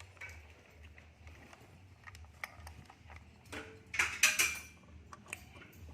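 Small clicks and rattles of a plastic battery charger and its plug cord being handled and pushed into an outlet, with a louder clatter about four seconds in, over a low steady hum.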